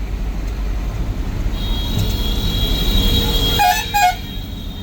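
Bus engine and road rumble, with a steady high-pitched whine for about two seconds in the middle. Two quick vehicle horn toots come near the end.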